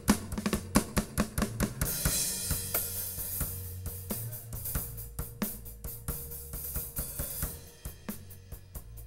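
Drum kit played over steady low bass notes: a quick run of drum hits, then a cymbal wash from about two seconds in that rings for several seconds, then sparser hits near the end.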